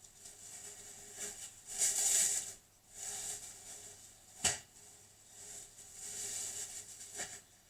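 Plastic wrapping crinkling and rustling in several bouts as a piece of raw chicken is unwrapped, with a single sharp knock about halfway through.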